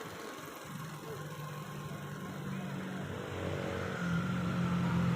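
A motor vehicle's engine running steadily, growing louder near the end as it comes closer.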